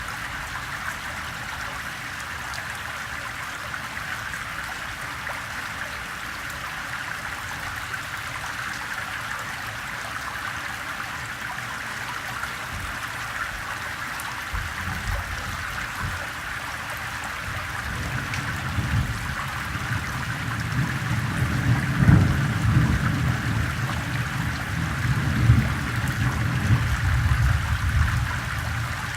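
Gentle rain, with water running and trickling off a pebbled street as a steady splashing hiss. In the second half a low rumble swells up under it, peaking twice.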